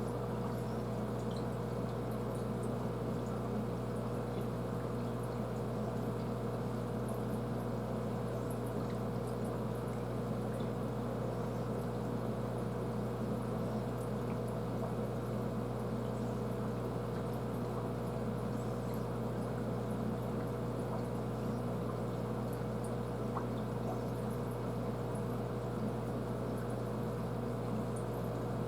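Aquarium filter running steadily: a constant trickle of water over a low, even hum.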